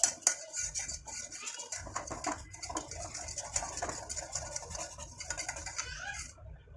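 Wire whisk beating thick gram-flour batter in a metal pot: a fast scraping, clicking rhythm as the wires hit the pot and churn the batter. The whisking stops near the end.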